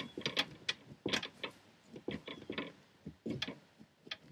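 A blade cutting into pumpkin while it is carved: irregular short clicks and scraping strokes, several a second, coming in small clusters.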